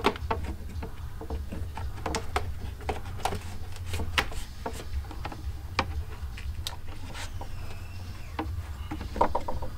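Scattered light knocks, taps and rubbing as a platform's vertical side panel is pushed and worked into place by hand against a Jeep's interior trim, around a rubber grommet, over a steady low hum. A faint brief squeak comes about seven seconds in.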